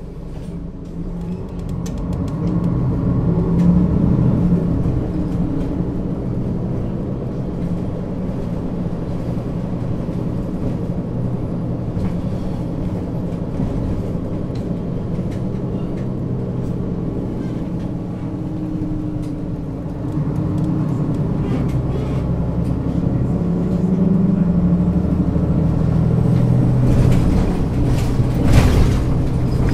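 Mercedes-Benz O 530 G Citaro G articulated bus with a Voith automatic gearbox under way. Its diesel engine pulls with a rising note over the first few seconds, holds steady, then pulls up again about two-thirds of the way through. There is a short loud noise near the end.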